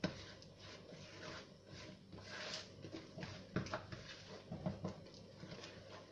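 Spatula stirring and scraping cake batter with dried fruit in a plastic mixing bowl: soft wet scrapes with a few sharp knocks against the bowl.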